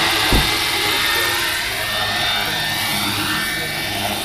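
Large five-bladed RC helicopter flying past: a steady whine from its motor and rotor head, with the pitch gliding in the second half as it passes. A brief low thump comes about half a second in.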